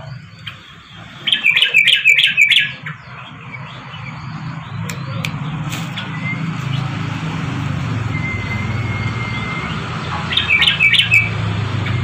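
Yellow-vented bulbul (trucukan) giving two bursts of rapid chattering notes, one about a second and a half in and a shorter one near the end, over a steady low hum.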